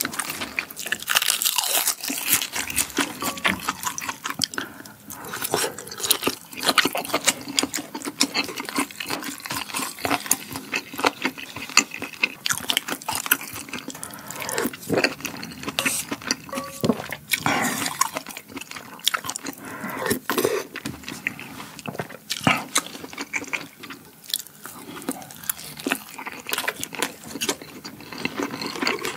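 A person eating kimchi jjigae with rice from a spoon, close to the microphone: many irregular wet chewing and crunching sounds.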